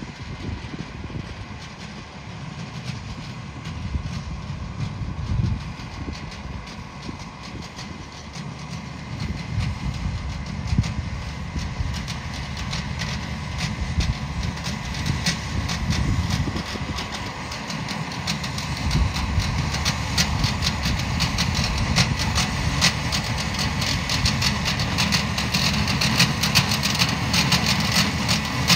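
Tractor engine running steadily under load while a side-mounted Tiger boom mower cuts tall grass, growing louder as it comes closer. A dense rattle of clicks from the cutting builds from about halfway through.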